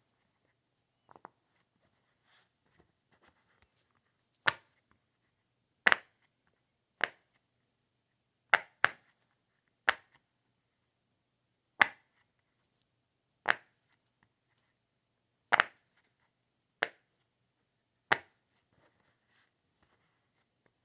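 Sharp pops, about a dozen, at irregular intervals one to two seconds apart, a few of them coming as quick doubles.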